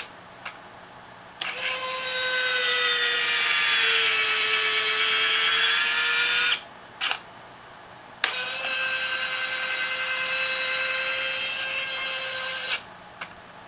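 Small electric gear motor driving the jack-screw actuator of a converted Robart 630 retract landing gear, running twice for about five seconds each, once in each direction, as a steady whine that starts with a click. Each run cuts off abruptly where the motor stalls at the end of travel, which the controller detects from the rise in current draw. After the first run there is a short blip as the motor backs off a little so the gear won't bind.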